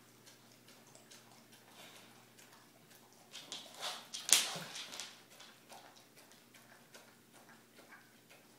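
A dog in a mesh muzzle eating from a stainless steel bowl: light ticks and clinks of the muzzle against the metal bowl, busier for a second or two near the middle, with one sharp clink.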